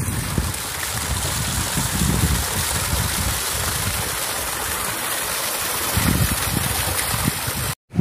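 Small waterfall, a thin flow of water splashing and trickling over granite rock into a pool, with wind gusting on the microphone. The sound cuts out for a moment near the end.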